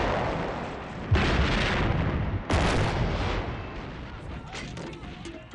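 Artillery guns firing: two heavy blasts about a second and a half apart, each trailing off in a long rumble that fades away near the end.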